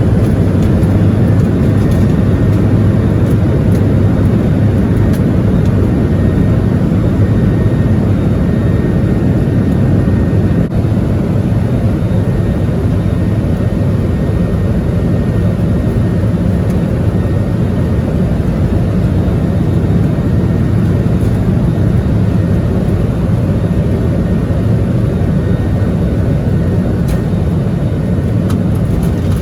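Steady loud drone of a Boeing 737-800's CFM56 engines and rushing air, heard from inside the passenger cabin, with a low hum underneath.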